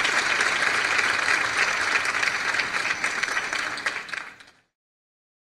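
Theatre audience applauding, a dense patter of many hands clapping that fades and then cuts off abruptly to silence about four and a half seconds in.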